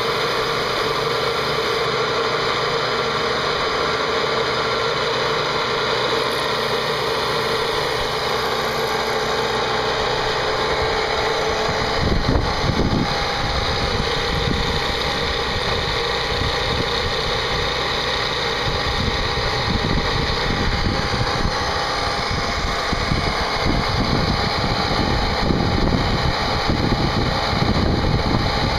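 CNC machine running steadily while machining a part, with a constant whine and noise. About twelve seconds in, a rougher, uneven low rumble joins and grows stronger toward the end.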